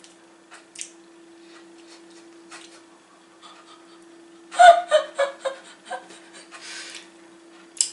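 A woman laughing in a run of short bursts about halfway through, followed by a breathy exhale. Before that there are only a few faint clicks over a steady low hum.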